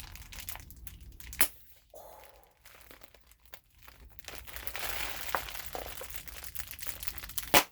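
Large plastic air-pillow packing (oversized bubble wrap) being squeezed and crinkled by hand, with two sharp pops: one about a second and a half in, and a louder one near the end.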